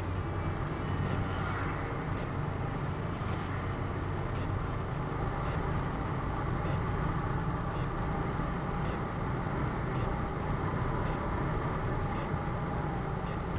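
Motorcycle engine running steadily while riding along a road, with road noise, heard from a camera on the bike.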